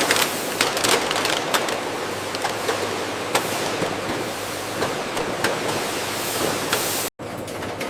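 Bottle filling and packaging machinery running: a steady hiss with many small clicks and clatter scattered through it.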